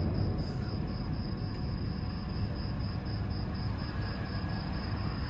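Crickets chirping in a steady, even pulse over a low rumble, while the echo of a blast just before dies away in the first moment.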